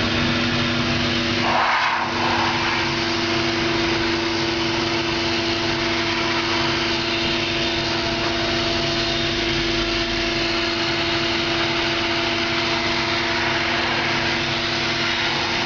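Electric ring blower of a Wind-Gun air gun running steadily: a rush of blown air over a steady whine. About two seconds in the rush briefly swells.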